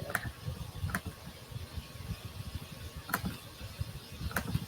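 Computer mouse clicking four times at uneven intervals over a low background rumble, as shapes are selected in design software.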